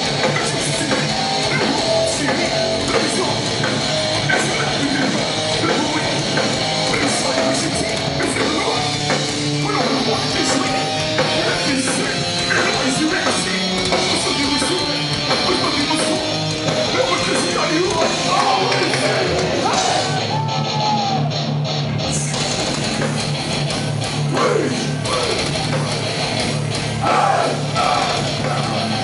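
Hardcore punk band playing live and loud: distorted electric guitars, bass and drums with shouted vocals. The cymbals drop out briefly about twenty seconds in before the full band comes back.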